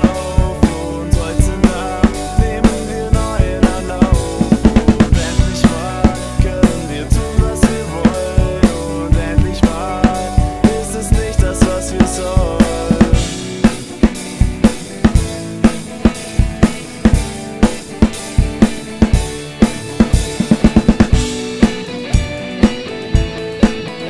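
Drum kit played along with a band's recording: kick, snare and cymbals in a steady groove over guitars and bass. The deep bass falls away about halfway through.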